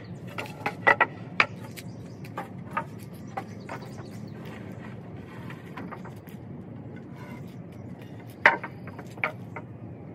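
Scattered sharp knocks and clicks at irregular intervals over a steady low hum, with the loudest knocks near the end.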